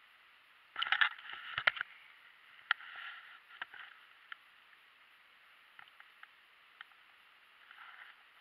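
Rustling and clicking handling noise. It comes as a dense burst about a second in, then a few scattered clicks and soft rustles.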